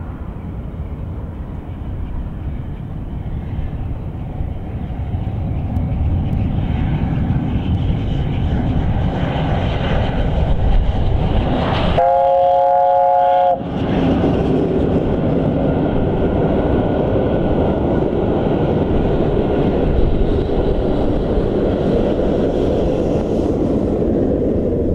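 LNER A4 streamlined steam locomotive hauling a passenger train, its sound growing louder as it approaches. About halfway through it sounds its chime whistle, one chord of several notes lasting about a second and a half, then the engine and coaches run past with a steady rumble of wheels on the rails.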